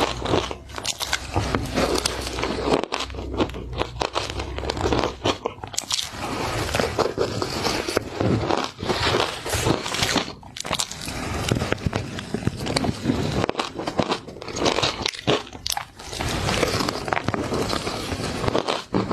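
Close-up chewing and crunching of matcha shaved ice, a dense, continuous run of crisp crunches.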